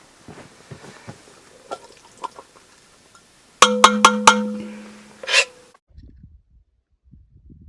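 Metal cookware being handled: light clinks, then about three and a half seconds in a loud ringing clang with four quick metallic knocks and a scrape. The sound cuts off suddenly about two seconds later.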